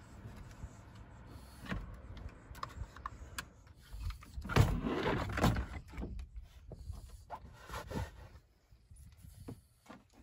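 Rustling and scattered clicks from a wire dog crate, its towel cover and its bedding being handled and shifted, with a louder stretch of rustling about halfway through.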